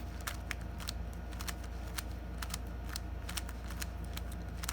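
Plastic Rubik's cube layers being turned by hand: a run of irregular sharp clicks, a few a second, over a steady low hum.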